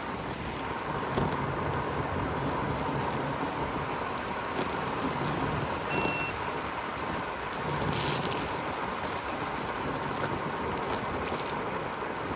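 Steady rushing of wind and tyres from a Segway ridden at speed, with a faint steady whine from its electric motor. A short high beep comes about halfway through.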